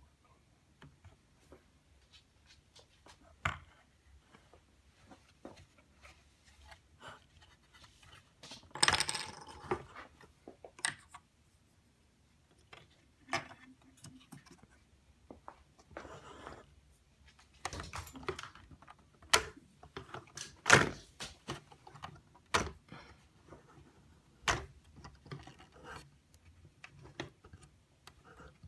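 Hard plastic parts of a 3D-printed Transformer toy clicking, knocking and scraping as it is handled on a countertop, in irregular separate clicks with a longer rattling scrape about nine seconds in and a run of louder knocks past the middle.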